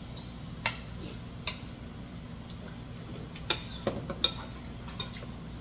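Chopsticks and spoons clicking and clinking against bowls and plates during a meal: a few separate sharp clicks, two of them louder about three and a half and four seconds in, over a steady low background hum.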